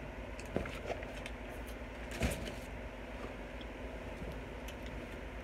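Quiet room tone with a steady low hum, broken by a few faint clicks and one brief rustle about two seconds in.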